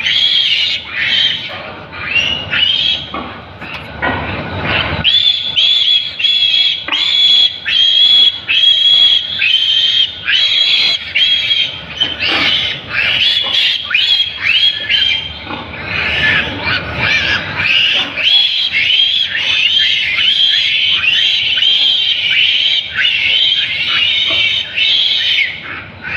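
Piglet squealing in distress as it is held by the legs for castration: a rapid run of short, high-pitched squeals, about two a second, with a brief let-up a few seconds in.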